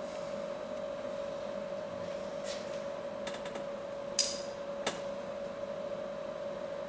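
Quiet room tone with a steady hum, a few faint clicks, and a short hiss about four seconds in followed by a sharp click.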